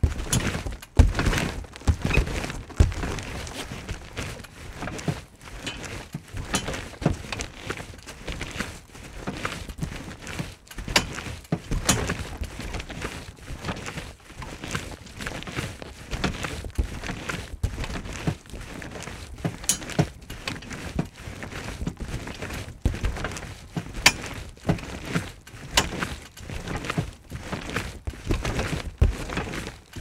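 Trampoline being jumped on: a run of irregular thuds from the bouncing mat, about one or two a second, with occasional sharper clicks.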